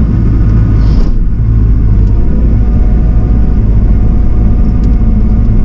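Excavator's diesel engine running steadily, a loud low rumble.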